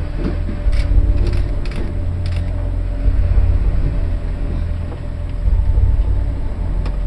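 A ship's structure creaking as it rolls in heavy seas, with a few sharp clicks in the first couple of seconds, over a steady low rumble.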